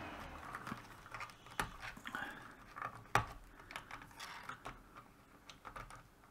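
Small plastic clicks and rustling as stepper-motor cable connectors are worked loose on an Ender 3 Pro 3D printer's mainboard, with two sharper clicks about one and a half and three seconds in.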